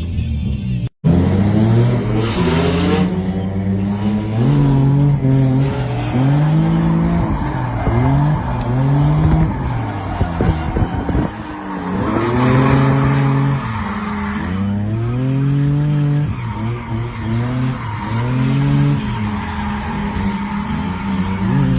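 Drift car engine revving up and down again and again under throttle, with tyres squealing as the car slides. There is a brief dropout about a second in.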